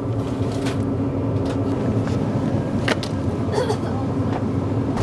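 Steady low hum of a convenience store's ambience, with a few light clicks and rustles of snack packaging being handled.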